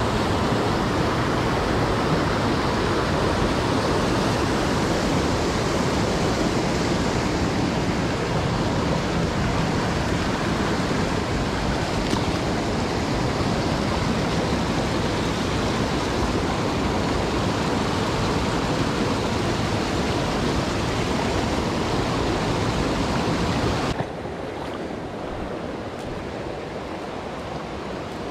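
Creek water rushing over rocks, a steady loud rush that drops suddenly to a quieter level near the end.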